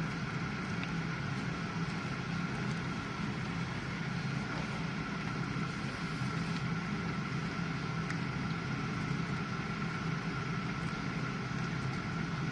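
GE dishwasher running mid-cycle: a steady low hum from its wash pump with a faint steady whine above it, unchanging throughout.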